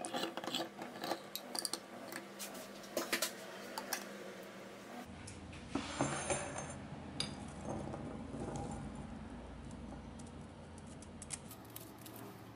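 Hand-held crank can opener working around a can's lid, a run of sharp metallic clicks. About five seconds in the clicks give way to quieter clinks of kitchenware over a low hum.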